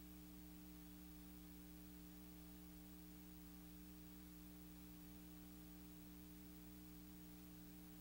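Near silence: a faint, steady electrical hum with hiss, unchanging throughout.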